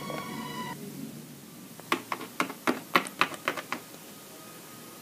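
Hard plastic Littlest Pet Shop toy figures tapped along a hard floor as they are made to walk: a quick run of light clicks, about five a second, starting about two seconds in and lasting about two seconds.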